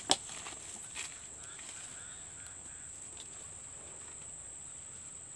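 Two sharp clicks right at the start and a softer one about a second in, over a steady high-pitched insect drone, with faint bird calls in the middle.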